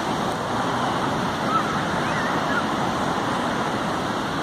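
Ocean surf breaking on a beach: a steady, continuous wash of waves.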